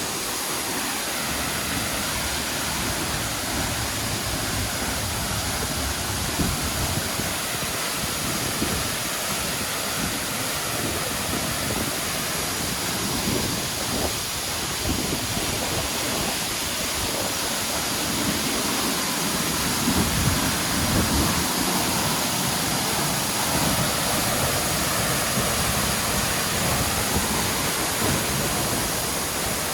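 A waterfall's water falling and splashing, a loud, steady rush of water noise that swells slightly partway through.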